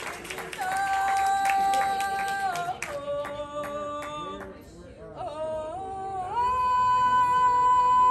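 One person singing karaoke, holding long steady notes that step up and down, then climbing to a long high held note about six seconds in.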